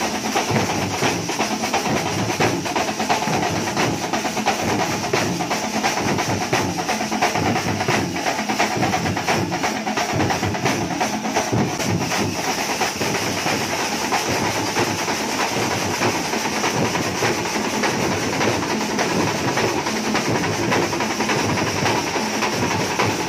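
A thambolam drum troupe playing together: many large drums beaten with sticks in a fast, dense, unbroken rhythm.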